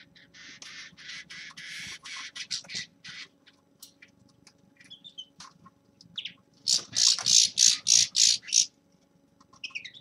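A common linnet singing: a run of rapid, rough twittering notes, then scattered short calls, and about two-thirds through a loud burst of harsh notes repeated about five times a second.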